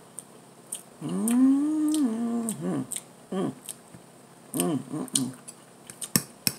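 A woman humming "mmm" in enjoyment with a mouthful of food: one long hum rising and falling in pitch about a second in, then several short ones. Quick sharp clicks come near the end.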